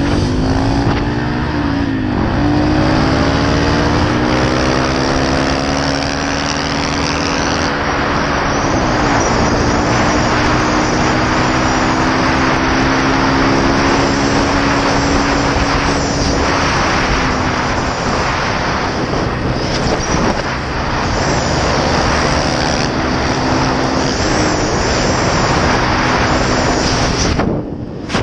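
Dirt bike engine accelerating through the gears, its pitch climbing and dropping back at each shift, then holding a steady cruise, over heavy wind noise from riding at speed.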